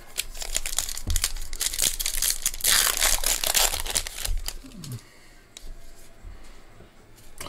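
Foil wrapper of a baseball card pack crinkling and tearing as it is ripped open, loudest about three seconds in. It then drops away to the soft rustle of the cards being handled.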